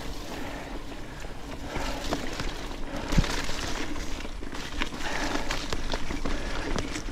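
Trek Supercaliber mountain bike riding up a stony trail: steady tyre noise over the stones with scattered clicks and knocks, and one sharp knock about three seconds in.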